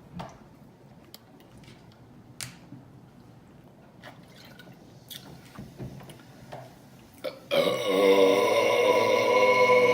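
A woman's long, loud burp, about three seconds of wavering pitched belching that starts near the end, brought up by drinking carbonated soda. Before it, a few short faint clicks.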